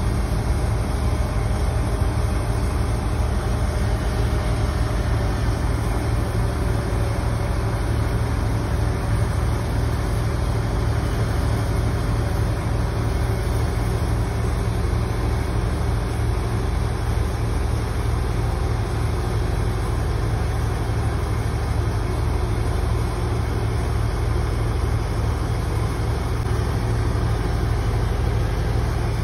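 A truck-mounted crane's diesel engine running steadily at a constant speed while it holds a load, a low, even drone with no revving.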